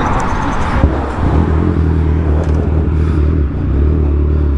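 Kawasaki Z1000's inline-four engine running at steady low revs, after a rushing noise in about the first second.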